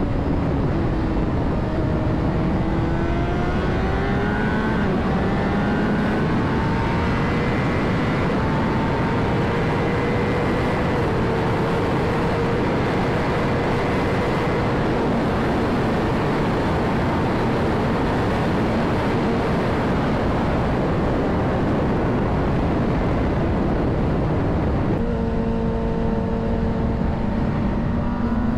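Honda CBR600RR's inline-four engine pulling away and climbing in pitch, then holding a steady cruising note under heavy wind rush on the helmet-mounted mic. Near the end the note steps down and starts climbing again, as with a gear change.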